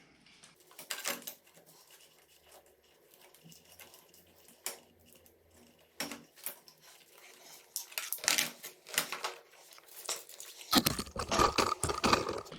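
Sparse clicks, rustles and scrapes of a motorcycle clutch cable and its plastic routing clips being handled as the clips are moved onto the new cable. The handling becomes a denser, louder rustling and scraping for the last second or two.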